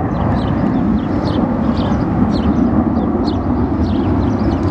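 Steady, loud roar of the jet engines of a four-ship diamond formation of fighter jets flying past, with a run of short high chirps above it.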